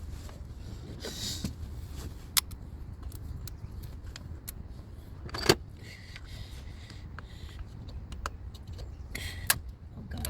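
Hand work on a car's intake parts: scattered sharp clicks and knocks of tools and plastic air tubes being handled, with short scraping noises, over a steady low rumble. The loudest knock comes about halfway through.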